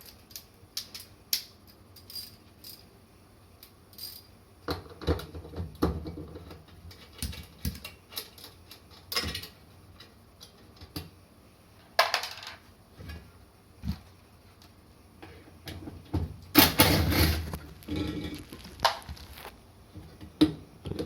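Scattered metallic clicks, clinks and knocks of parts and tools being handled while a Hitachi DE-N55FX clothes dryer is taken apart, with a louder, longer clatter about seventeen seconds in.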